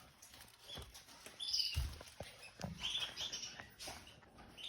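Red-factor canaries giving short chirps and call notes several times, with a few low knocks and bumps about two seconds in.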